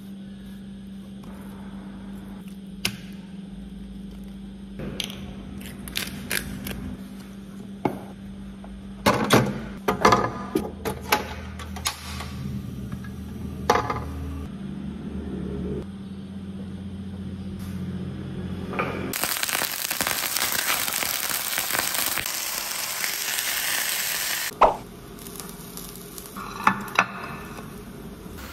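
A knife knocks on a wooden cutting board as raw chicken is sliced, in a cluster of sharp knocks and clicks. Then chicken sizzles loudly in a hot pan on a gas stove for about five seconds, and the sizzling cuts off with a sharp knock.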